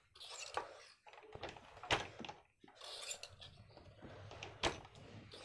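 A dhaka handloom being worked while plain rows are woven: light rustling of thread and cloth with two sharp wooden clacks, about three seconds apart.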